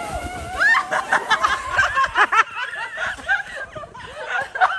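A drawn-out shout of "yaaa", then people laughing hard in quick repeated bursts from about half a second in.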